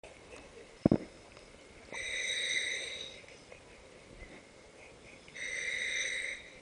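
A scuba diver breathing through a regulator: two long hissing breaths, about three seconds apart, each with a whistling edge. A single sharp knock comes about a second in.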